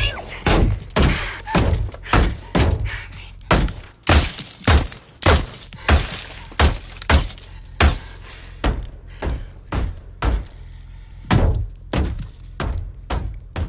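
Gunfire: bullets striking a car's bulletproof side windows, heard from inside the car, as a long irregular series of sharp impacts with cracking glass, about two a second, thinning out for a while in the later part.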